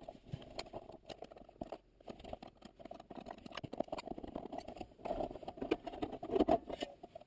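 Irregular clicking, rattling and small knocks of hand work on a car's shifter and its parts, busier and louder in the last couple of seconds.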